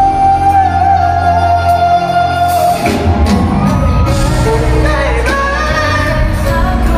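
Live band playing a pop song with a lead singer, heard with the reverberation of a large hall. A long held vocal note gives way about three seconds in to a new sung phrase over the band.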